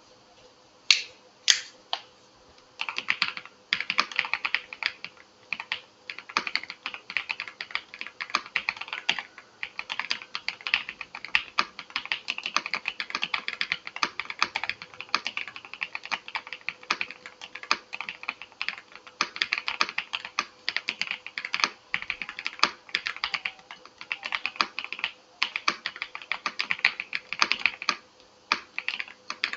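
VGN V87 Pro mechanical keyboard with Aniya switches in Kailh hot-swap sockets being typed on: a couple of single loud key clicks about a second in, then fast, continuous clacking of keystrokes with a short pause near the end. A faint steady hum sits underneath.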